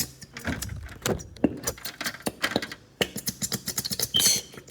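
Many quick clicks, taps and rattles of small hard objects being handled, with a short hissing scrape about four seconds in.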